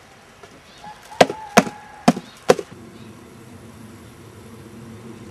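Four sharp knocks in quick succession, a little under half a second apart. After them a steady low background noise continues.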